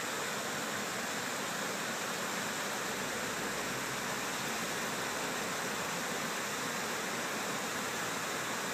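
Water pouring over a low curved river dam: a steady, even rush of falling water.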